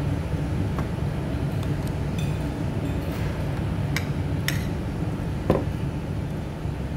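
Metal spoon and fork clinking and scraping against a ceramic plate in several short sharp clicks as rice is scooped, with one duller, louder knock near the end. A steady low room hum runs underneath.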